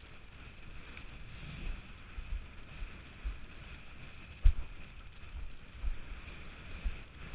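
Windsurfer planing across choppy water: steady wind noise on the camera microphone with the rush of water, and irregular low thumps, the loudest about four and a half seconds in.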